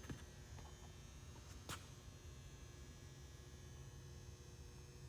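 Near silence: a faint steady electrical hum, with one brief click about a second and a half in.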